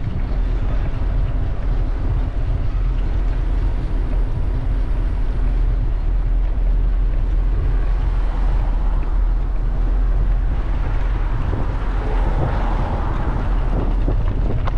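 Wind rumbling steadily on the microphone of a camera on a moving bicycle, over a wash of city traffic noise.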